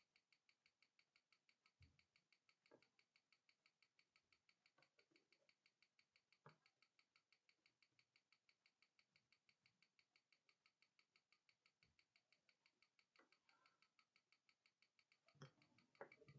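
Near silence, with a faint, steady, rapid ticking at about six ticks a second and a few soft, scattered clicks.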